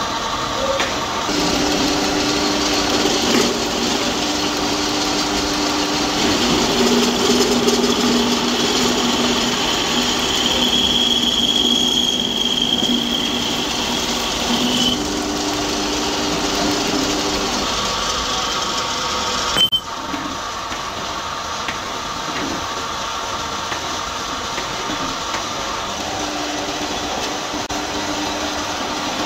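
Metal lathe running steadily while its cutting tool turns down a steel pin, a constant machine hum with a few steady tones. A thin high whine from the tool cutting the steel rises out of it for a few seconds in the middle. About two-thirds through, the sound breaks off sharply and resumes.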